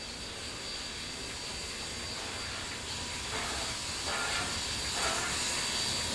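Two steam locomotives approaching double-headed under steam, 3526 leading with 3801 behind. A steady hiss of steam grows louder as they near, with a few faint exhaust beats about a second apart from about halfway.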